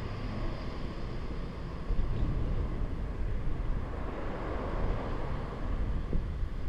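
Wind rushing over a head-worn GoPro's microphone while riding a bicycle, a steady low rumble that rises and falls.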